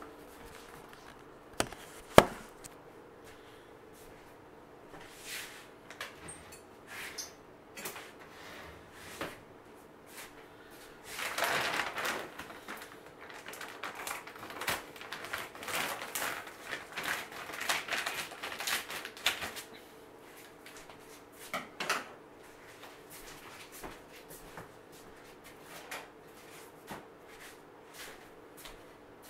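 Two sharp knocks about two seconds in, then a long run of crackling, rustling handling noise from a large plastic bag of dry cat food being grabbed and moved, with scattered small clicks and knocks around it.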